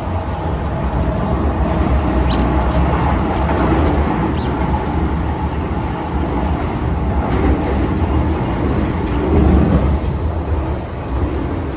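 MTR Kwun Tong Line M-Train running between stations, heard from inside the passenger car: a steady rumble of wheels on rail, with a few brief high-pitched ticks about two to four and a half seconds in.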